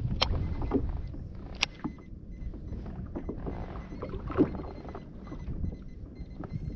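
Steady low rumble of wind and water on the microphone, with a few sharp clicks and knocks from a gold overhead fishing reel being handled, the loudest a little past four seconds in.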